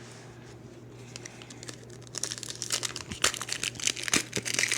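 Foil trading-card pack wrapper crinkling and tearing as it is handled and opened, starting about two seconds in after a quiet stretch.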